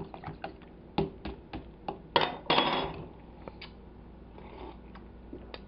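A spoon stirring iced tea in a plastic cup, making irregular light clinks and knocks about two or three times a second. A louder scraping clatter comes about two seconds in.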